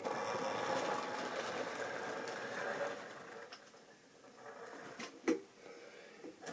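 Model Class 20 diesel locomotive's small electric motor whirring as it pulls its train of wagons away along the track, wheels running on the rails; the sound dies away after about three seconds. A sharp click a little after five seconds in.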